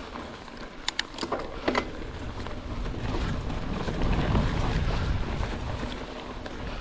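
Mountain bike riding over a grassy trail: wind buffeting the microphone and tyres rolling over rough ground, with a few sharp clicks and rattles from the bike about a second in. The rumbling wind noise swells through the middle.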